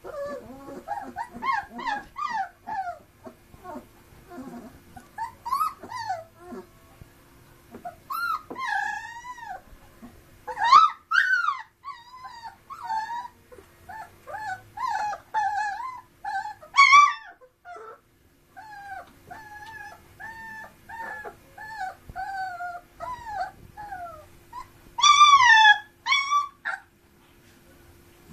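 Three-week-old Dalmatian puppies whimpering, a long run of short high-pitched whines that rise and fall, with a few louder squeals now and then.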